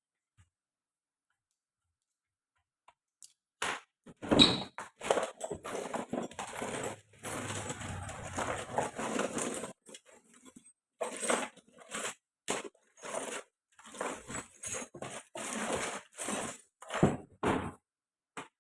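Irregular handling noises: a run of short clicks, knocks and scraping rustles that begins after about three and a half seconds of near silence.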